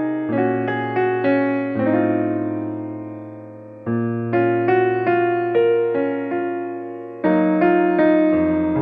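Background piano music: a slow melody of struck notes over held bass chords. About two seconds in, a chord rings out and fades, and new phrases begin about four and seven seconds in.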